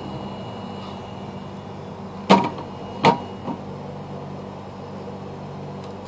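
Steady hum of a hot air rework station's blower, with two sharp clacks of tools set down on the workbench, a little over two and three seconds in, and a lighter one just after.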